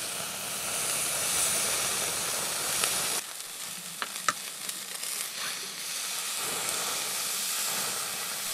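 Thick steak sizzling on a slotted metal grill plate over hot wood coals, a steady frying hiss that eases a little about three seconds in. Two light clicks of metal tongs against the plate come about four seconds in.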